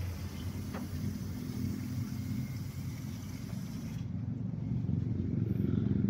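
Low, steady rumble of a motor vehicle's engine running, growing louder near the end.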